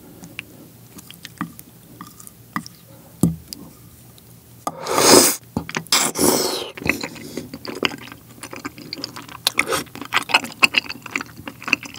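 Chopsticks clicking lightly against a plate while gathering tteokbokki rice cakes in thick sauce. Then two loud slurps about five and six seconds in as a mouthful of four rice cakes is sucked in, followed by wet, sticky chewing.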